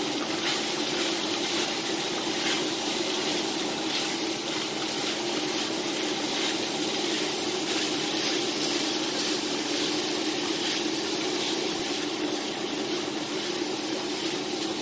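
Diced beef with onions, green bell pepper and jalapeño sizzling steadily in a hot cast iron skillet, tossed and stirred with wooden spatulas.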